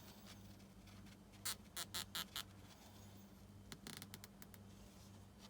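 Small sharp clicks from hand work on small parts: a quick run of about five clicks about a second and a half in, then a short cluster near four seconds. A steady low electrical hum sits underneath.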